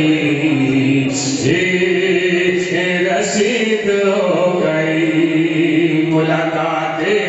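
A man's voice chanting devotional verses in long, held notes that glide slowly between pitches, without pause.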